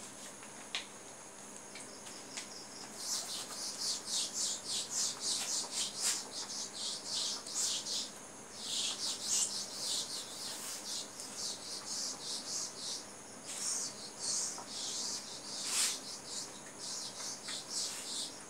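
Whiteboard duster wiping back and forth across the board: quick rhythmic scrubbing strokes, about two or three a second, starting about three seconds in and going on with a few short pauses.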